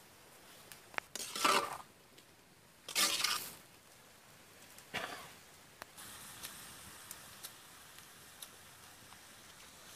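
Metal ladle stirring pieces of goat blood in a black wok: three short scraping swishes in the first five seconds, then a steady sizzle with small pops as the pan steams.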